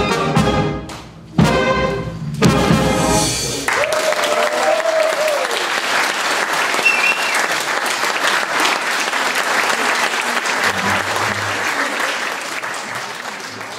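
Brass and wind band, with trombones, tubas and saxophones, playing the last chords of a piece, which stops about four seconds in. Applause follows and fades out near the end.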